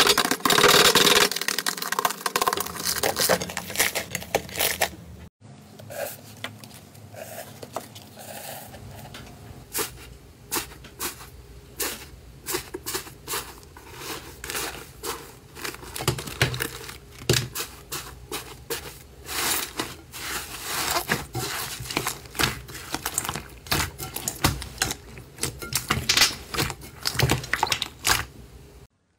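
Hands kneading, pressing and stretching slime in a glass bowl, making a dense run of crackles, pops and tearing sounds. The crackling is loudest in the first five seconds, breaks off abruptly, then carries on with a new slime.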